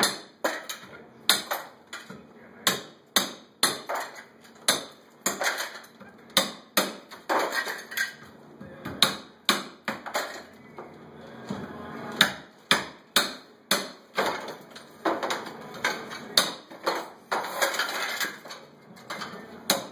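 Claw hammer striking porcelain wall tile and breaking it off: sharp, irregular cracks about one or two a second. Between the strikes, broken shards clatter into a plastic crate and onto the tile floor.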